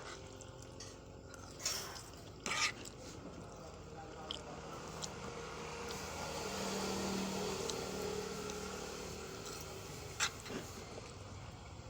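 Eating noises with a few sharp clicks of utensils on a plate, around 2 seconds in and again near the end. A motor vehicle passes in the middle, its sound rising and fading over about three seconds.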